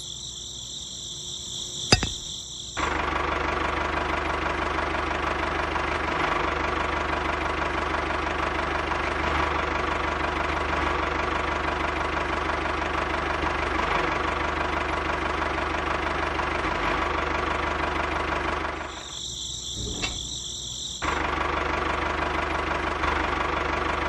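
Small electric motor and gears of a homemade toy tractor running at a steady speed. It starts about three seconds in, stops for about two seconds near the end, then starts again.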